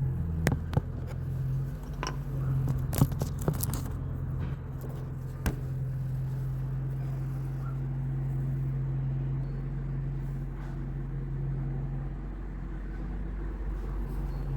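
Car engine idling steadily with a low hum, with a few sharp clicks and knocks in the first several seconds.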